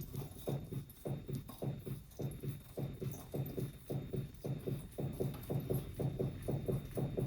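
Renault Zoe front suspension knocking in a steady rhythm, about three dull knocks a second, from worn stabilizer (anti-roll bar) links.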